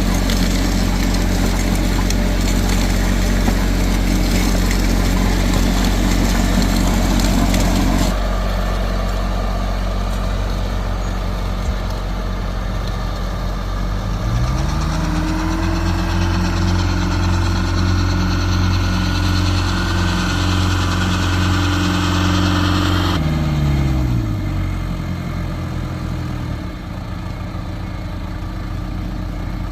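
Tractor diesel engine running with a mounted garlic planter working, a loud rattling, rushing noise over it that stops about eight seconds in. About halfway through the engine revs up, holds at the higher speed, then drops back to idle.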